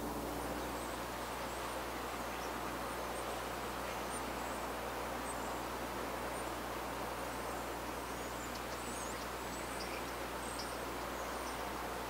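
Steady background noise with the faint, high whistles and chirps of a flock of European starlings scattered through it.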